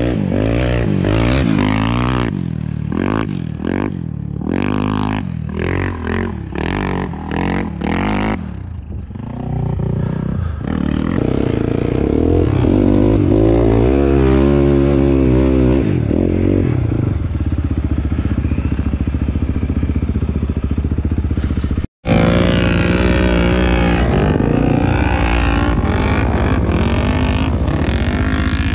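Sport quad engine revving hard in sand, its pitch climbing and falling with throttle and gear changes, then held high under steady load. The sound cuts out for an instant about three-quarters of the way through.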